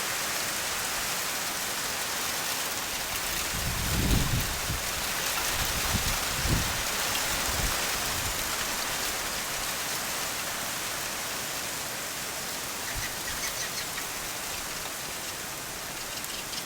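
Steady hiss of wet precipitation falling, the drops melting as they hit the ground. A few dull low thumps come between about four and seven seconds in.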